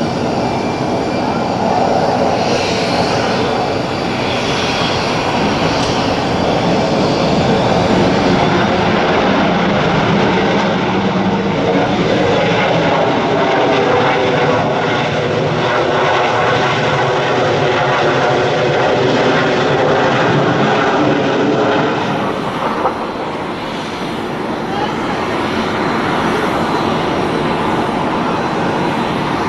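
Airliner jet engines running loudly and steadily, a whine of several tones over a broad rumble; the sound eases briefly a little over twenty seconds in.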